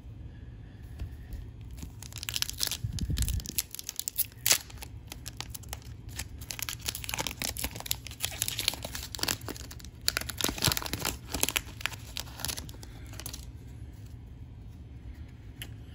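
A foil hockey-card pack being torn open and its wrapper crinkled: a run of crackling rips and rustles starting about two seconds in and stopping a couple of seconds before the end.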